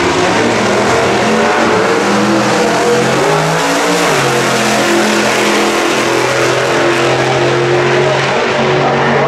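Two V8 drag-racing cars making a side-by-side quarter-mile pass at full throttle, a loud, steady engine roar whose pitch steps down about three and a half seconds in, as at a gear change.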